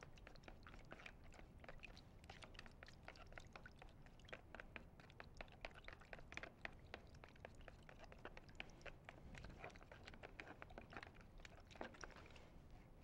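Faint, rapid clicking and scraping of a spoon stirring dye into a liquid in a plastic bowl.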